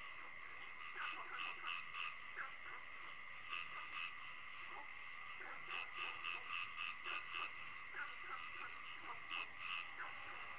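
Night-time chorus of frogs croaking in quick irregular runs of short calls over a steady high drone.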